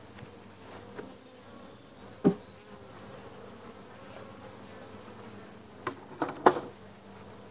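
Honey bees buzzing steadily around an opened hive. A sharp knock about two seconds in and a quick run of knocks and clunks near the end come from handling the wooden hive.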